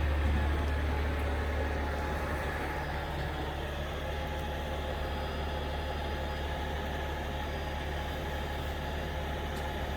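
Large truck engine idling steadily with a low hum, most likely the tow truck's, since the bus itself will not run. A short thump comes right at the end.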